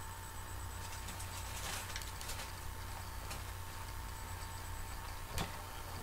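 Faint paper handling as the card pages of a handmade photo book are moved, with a few light rustles and one sharp tap about five seconds in, over a steady low hum.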